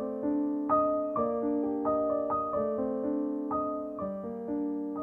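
Background piano music: a slow, gentle melody of single notes, each struck and left to ring.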